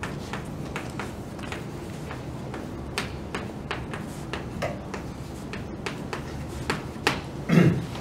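Chalk tapping and scraping on a blackboard while words are written: a run of irregular sharp ticks. Near the end a short falling voice sound.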